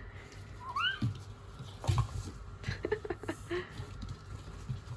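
A small dog playing with a baby on a foam play mat: a short rising squeal about a second in, then scuffling and soft thumps, the loudest about two seconds in.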